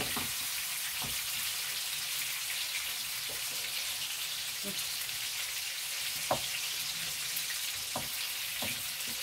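Hot peppers frying in oil in a pan: a steady sizzle with scattered sharp pops, the loudest about six seconds in.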